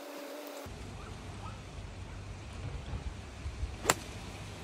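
Wind noise on the microphone, then about four seconds in a single sharp click as a 5-iron strikes a golf ball off the turf.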